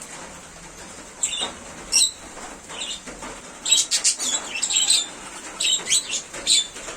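Small aviary birds making short, high-pitched chirps: a few scattered calls, then a busier run of chirps from about four to six and a half seconds in.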